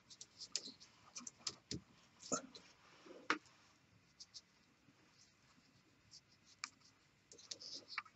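Small clicks and scratchy rasps of hands handling a pointed metal tool and a doubled worming cord against a taut three-strand natural-fibre rope, as the cord is worked under the rope's strands. The sharpest click comes about three seconds in.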